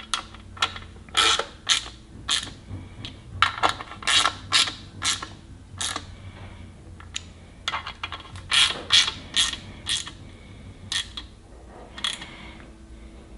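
Small hand ratchet clicking in short irregular runs as the bolts of the valley pan's end hold-down plate are snugged down.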